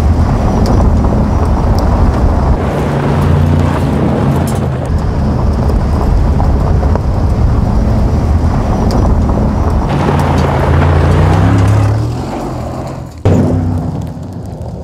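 Mercedes-AMG G63's twin-turbo V8 running under load as the SUV drives fast on a gravel track, with tyres rushing over the gravel. The engine note shifts in steps several times, with a sudden jump in loudness near the end.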